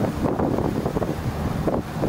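Wind buffeting the microphone in uneven gusts, over the wash and slosh of a car wading slowly through floodwater covering the road.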